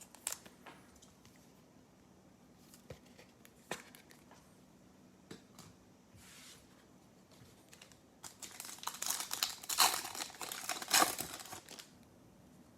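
A trading card pack's foil wrapper crinkling and tearing as it is opened, after a few light clicks of handling. The crinkling is loudest and densest about eight seconds in and lasts some three seconds.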